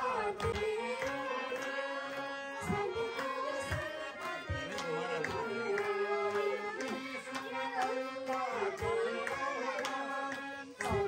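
Devotional song sung by women to a harmonium's steady reed drone and a hand drum beating a regular rhythm, with a woman's lead voice on top.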